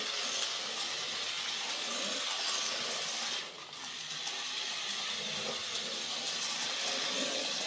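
Adventure Force mini RC truck's small battery-powered electric motor and gears whirring steadily as it drives across a laminate floor. The whir drops briefly about three and a half seconds in, then picks up again.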